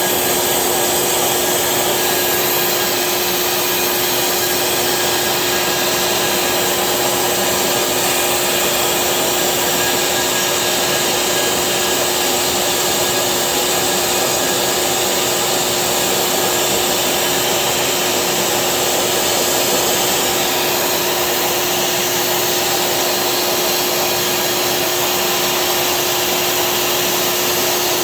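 CNC machine running steadily: an even rushing machine noise with a constant whine, unchanging throughout.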